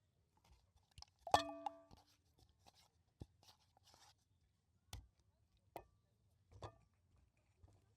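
Cookware being handled during food preparation: a sharp clink about a second in that rings for about half a second, then a few lighter knocks and clicks spaced a second or so apart.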